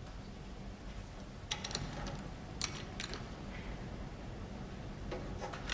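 A few faint metallic clicks and light rattles of combination padlocks on metal lockers being handled, in small groups about a second and a half in, again around three seconds in, and near the end, over a steady low hum.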